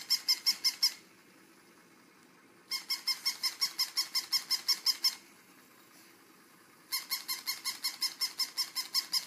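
Plush toy squeaking in rapid, evenly spaced runs of about seven squeaks a second: three bursts of a couple of seconds each, with short pauses between.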